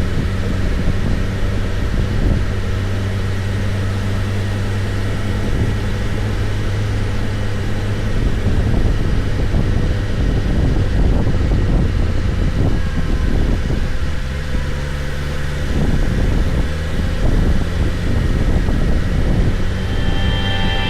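BMW S1000RR inline-four engine running at a steady cruise over a constant rushing noise, its note dipping for a couple of seconds about fourteen seconds in before settling back.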